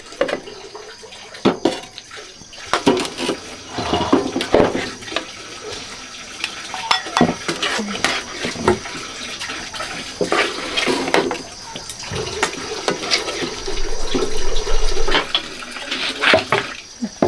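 Dishes and cutlery clattering, with water running, as a meal is readied in the kitchen.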